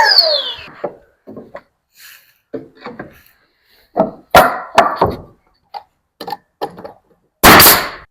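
A power saw spins down in the first second, followed by scattered knocks and a few sharp thumps of wood boards being handled. Near the end the Bostitch coil siding nail gun fires one loud pneumatic shot.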